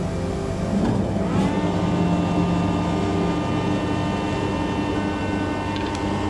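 A steady mechanical hum from a motor running, its pitch shifting and settling about a second in.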